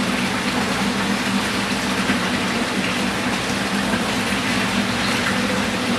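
Aquarium water circulating: a steady rush of moving water with a steady low pump hum underneath.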